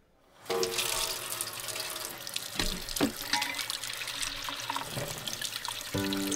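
Kitchen tap running, its stream splashing into a bowl of water in a stainless steel sink. The sound starts about half a second in, with a couple of light knocks near the middle.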